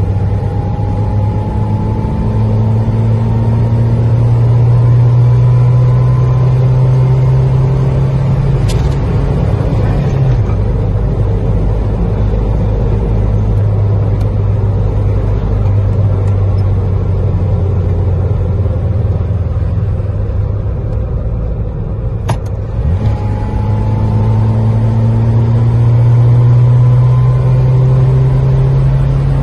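Manual truck's engine and road noise heard from inside the cab under throttle. The engine note climbs slowly as the truck gathers speed, levels off, then climbs again over the last several seconds. A brief sharp click sounds about 22 seconds in.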